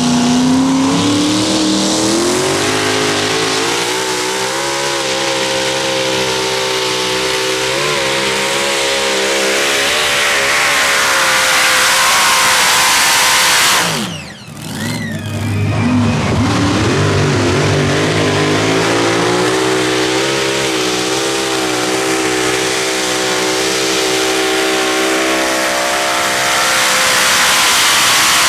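Pulling tractor's engine at full throttle under load, its pitch climbing for a few seconds and then holding with a slight waver. About halfway through the sound breaks off suddenly, and a second run starts, climbing again and holding to the end.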